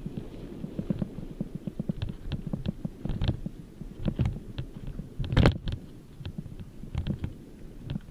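Mountain bike rolling fast down a dry dirt singletrack, heard through a helmet-mounted camera. There is a low rumble of jolts over the ground with frequent knocks and rattles. A sharp knock about five and a half seconds in is the loudest.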